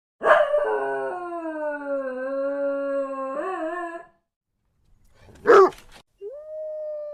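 Dog howling in one long call of about four seconds that dips in pitch and lifts at the end, then a single short, loud bark about five and a half seconds in, then another howl beginning near the end with a quick rise and a slow falling pitch.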